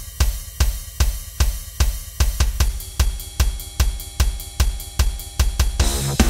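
Industrial metal track opening on a drum kit alone: a steady beat of kick, snare, hi-hat and cymbal hits, about two and a half strong hits a second. Held tones join about halfway, and the fuller band comes in near the end.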